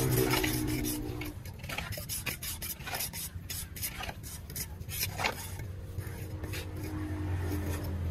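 Hands rubbing and scraping over wet cement in a concrete jali mould, a run of short, irregular strokes.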